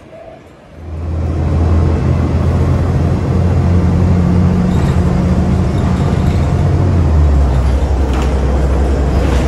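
City bus engine running with a loud low hum, heard from inside the bus as it drives. The hum comes in about a second in and drops in pitch about seven seconds in.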